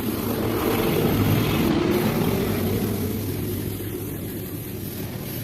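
A motor running with a low hum, growing louder for about a second and a half and then slowly easing off.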